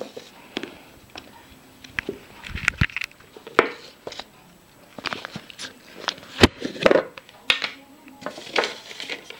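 Handling noises from a metal cigarette case and a round tin with a lid: scattered clicks, taps and short rustles at an uneven pace, with one sharp knock about two-thirds of the way through.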